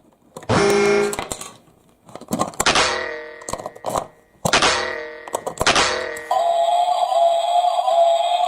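Four ringing, bell-like struck tones, each fading over a fraction of a second. About six seconds in they give way to a steady, slightly wavering high tone.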